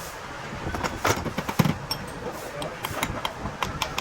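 A series of sharp metallic clicks and knocks over a steady background of mechanical noise, the clicks coming more often near the end.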